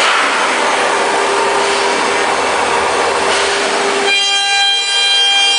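SH-1325WS CNC router's spindle and bit routing grooves into an MDF door panel, a steady rasping cutting noise with a faint hum under it. About four seconds in it changes abruptly to a steady high whine made of several pitches.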